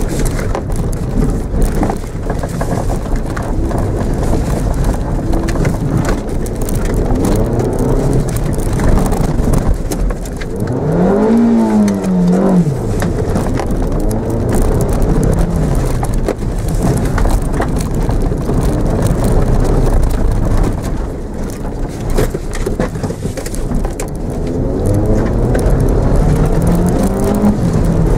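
Mitsubishi Mirage's engine revving up and falling back again and again as the car is driven hard through a cone course, heard from inside the cabin. It makes its biggest climb about ten seconds in and another near the end, over a steady rumble and knocking from the tyres and body on rough grass.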